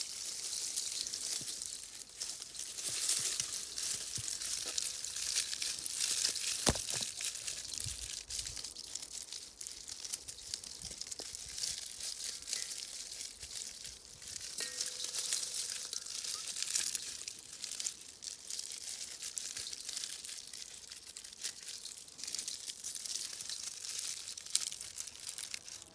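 Dry columbine seed heads and stalks crackling and rustling continuously as they are handled and crumpled by hand.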